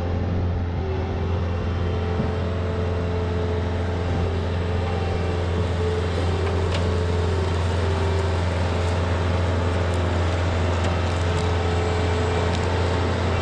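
Bobcat S66 skid steer's diesel engine running steadily as the machine drives with its bucket down.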